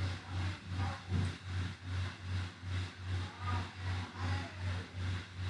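A steady low hum that swells and fades about three times a second, over a faint even hiss.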